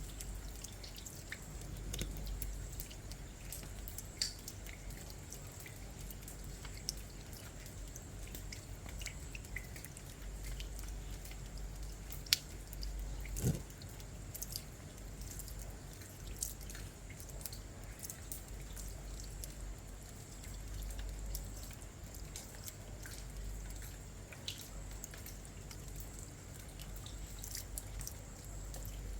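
Rain falling steadily, with many irregular drips and splashes landing close by. A sharper tap and a duller knock stand out about halfway through.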